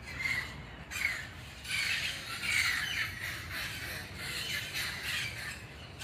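A flock of parrots squawking in a tree, many harsh calls overlapping one after another with no pause.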